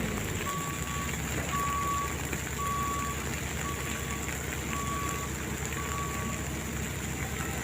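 Reversing alarm on a diesel road-construction vehicle beeping about once a second, one steady tone about half a second long each time, over the engine running. There are six beeps, then they stop about six seconds in while the engine keeps running.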